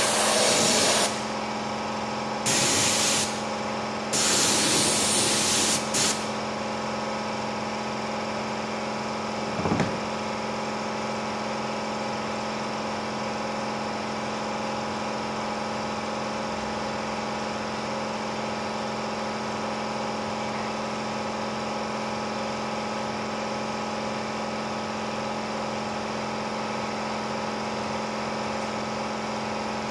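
Handheld air spray gun hissing in three short bursts over the first six seconds as it sprays glue onto upholstery foam, then a single knock near ten seconds. A steady machine hum with several held tones runs underneath.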